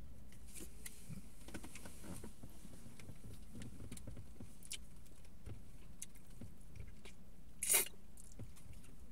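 Two people kissing: faint wet lip smacks and small rustles over a low steady hum, with one louder sharp smack about eight seconds in.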